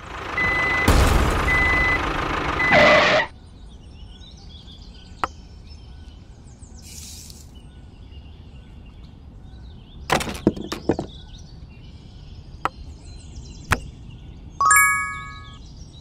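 Engine running with a reversing beeper beeping about once a second, for about three seconds before it cuts off. After that it is quiet apart from a few light clicks and taps, and a short bright chime near the end.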